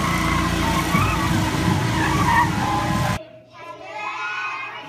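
A parade truck's engine running under a loud mix of crowd voices, cut off abruptly about three seconds in. After a brief hush a group of children starts singing in a large hall.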